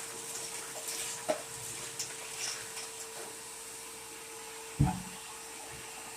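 Bucket-lid wet/dry vacuum running: a steady motor whine over rushing air. A few light knocks are heard, and one louder thump near the end.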